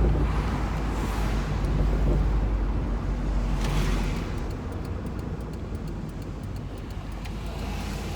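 Inside the cabin of a 2002 Subaru WRX on the move: its turbocharged flat-four engine pulls hard for about four seconds, then eases off to a quieter, lower drone, with a light rapid ticking in the second half.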